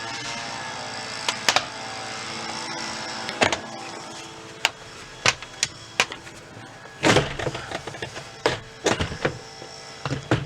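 Plastic interior trim on a 2015 Dodge Grand Caravan sliding door being pried and pulled off, its clips snapping and knocking in about a dozen sharp clicks, with a longer scraping clatter about seven seconds in. A steady hum fades out about three and a half seconds in.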